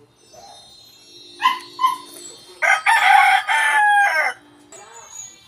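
Rooster crowing: two short notes, then one long, loud call that drops in pitch at its end.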